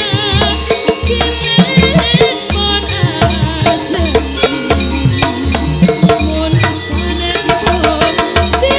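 Javanese gamelan accompaniment playing, with a steady low drum beat about twice a second under many ringing pitched notes, and a high wavering melody line near the start.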